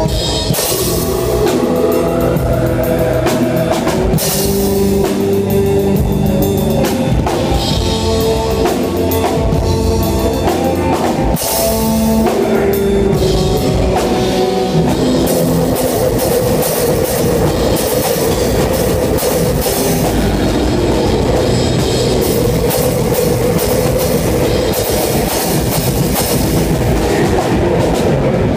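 Live rock band playing loudly, the drum kit close to the microphone: fast drumming with cymbal crashes over sustained electric guitar.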